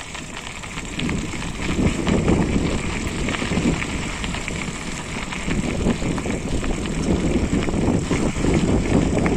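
Forever FM075 mountain bike ridden over a rough trail: tyres rolling on stony ground with a constant rattle and many small clicks from the bike, and wind on the body-mounted phone microphone.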